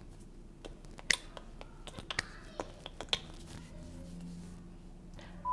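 Scattered light clicks and taps at irregular intervals, the sharpest about a second in, over a faint low hum.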